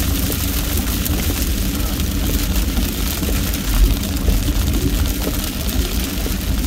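Steady low rumble of a car's engine and tyres heard inside the cabin, with an even hiss of rain and spray from the wet road. There is a brief low bump about four seconds in.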